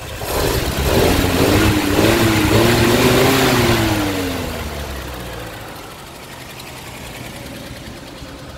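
Six-cylinder truck engine revved by a throttle blip: it rises sharply right at the start, holds high for about three seconds, then falls away and settles back to a steady idle. The engine runs a little rich on its worn carburetor.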